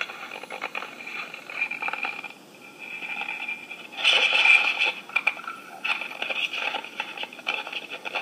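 Playback through an iPhone 5's small speaker of a video recorded inside a sealed waterproof housing: thin, muffled scraping and rubbing noises, loudest about four seconds in. The sealed housing blocks out most of the sound.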